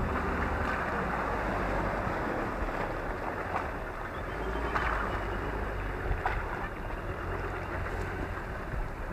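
Ford Ranger ute engine running steadily while driving through a muddy bog hole, with water and mud rushing and splashing around the tyres.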